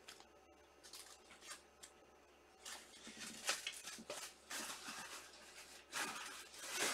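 Faint handling noises at a desk: a few scattered clicks, then from about three seconds in a busier run of rustling and sharper clicks and taps.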